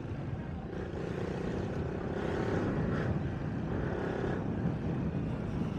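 Motorcycle engine running steadily while the bike rides along, mixed with low road and wind noise.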